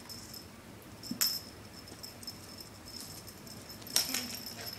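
Small metal bell on a feather wand cat toy jingling as a kitten bats at the toy, with sharp jangles about a second in and again near the end.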